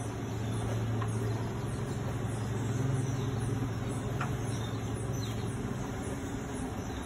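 Funicular car in motion, its drive giving a steady low hum. Faint high chirps repeat about twice a second behind it.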